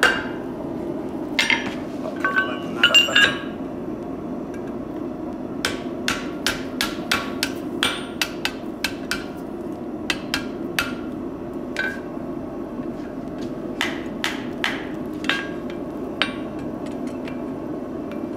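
Blacksmith's hammer striking a red-hot steel bar on an anvil in irregular runs of blows, some of them ringing briefly off the anvil. A steady low hum runs underneath.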